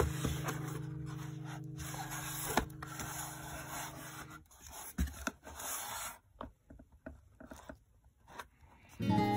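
Cardboard shipping box handled and its lid flipped open: scraping and rustling of cardboard with a few sharp knocks. Background music plays under it and stops about four seconds in; new music comes in just at the end.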